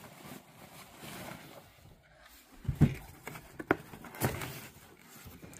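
Rustling and light knocks of items being handled: a fabric tote bag shifted over a cardboard box, then a small cardboard gift box set down on a table, with a few short sharp knocks about halfway through.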